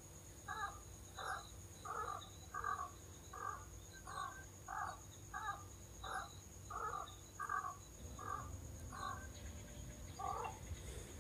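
A bird calling in a regular series of about a dozen short calls, a little under two a second, spacing out and stopping near the end, over a faint steady high tone.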